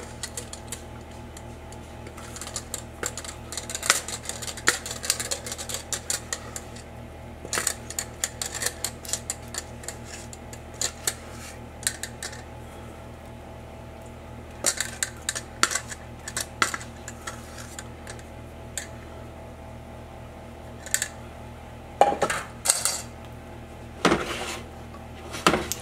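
Spatula scraping thick brownie batter out of a stainless steel mixing bowl into a glass baking dish, in many short scrapes and clinks against the bowl. Near the end the spatula spreads the batter in the dish. A steady hum runs underneath.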